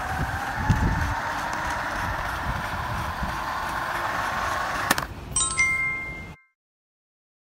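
Small DC motor of a homemade paper toy bus whining, its pitch rising slightly, over the rumble of plastic wheels rolling on a tile floor. About five seconds in there is a click and a short bell-like ding chime.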